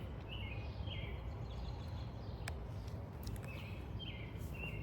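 Outdoor ambience: a steady low rumble with short bird chirps near the start and again near the end, and a single click about halfway through.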